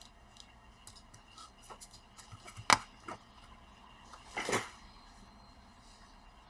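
Light clicks and taps of hard plastic being handled on a workbench, with one sharp click a little under halfway through and a short scraping rustle about two seconds later.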